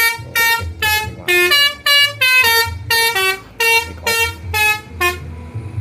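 A tour bus's Basuri "telolet" multi-tone air horn playing a quick tune: a run of short honks at changing pitches, about two or three a second, stopping about five seconds in.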